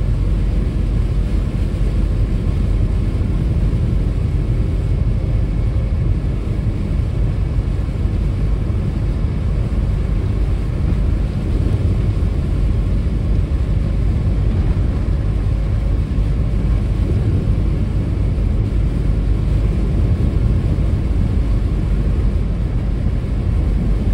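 Steady road noise inside a car driving on a wet expressway in heavy rain: a low, even rumble of tyres and engine.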